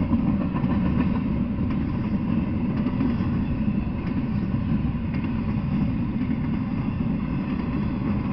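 Double-stack intermodal freight train rolling past: a steady low rumble of its well cars' wheels on the rails, with a few faint clicks.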